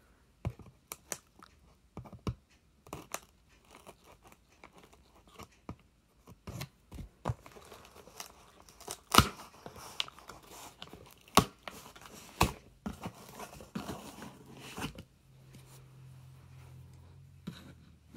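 Packing tape being picked at and torn on a cardboard box, with irregular sharp crackles and short rasps.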